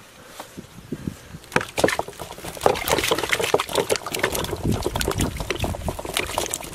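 Whole potatoes tipped from a basket into a plastic tub of water: a rapid run of splashes and plops that begins about a second and a half in and goes on to near the end.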